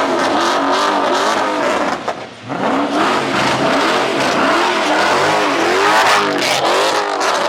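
Car engine revving hard, its pitch swinging up and down over and over, under a steady hiss.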